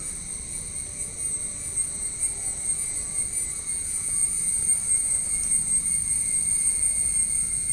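A chorus of insects, such as crickets, shrilling steadily at several high pitches, over a low rumble.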